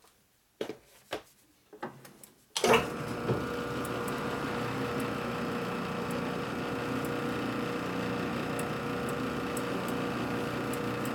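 A few light knocks, then about two and a half seconds in a metal lathe starts and runs steadily with a gear whine, its spinning workpiece being worked by hand.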